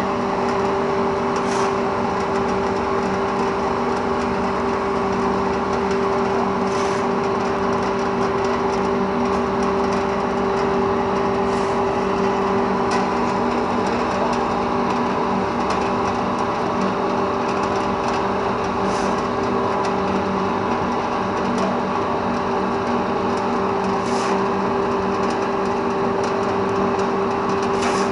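Small sawdust pellet mill running steadily under load, pressing sawdust into fuel pellets: an even mechanical hum with one strong drone, and a few faint ticks scattered through.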